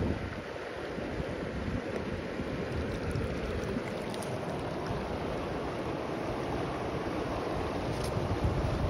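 Steady rush of river water, with wind buffeting the phone's microphone.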